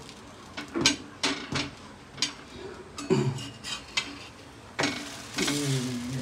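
Steel spatula clicking and scraping against a flat iron tawa griddle as a sandwich is pressed and turned, a string of sharp separate clinks.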